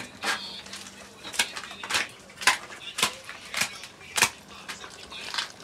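Kitchen items being handled on a counter: a string of sharp, irregular clicks and knocks, about two a second, over a faint steady hum.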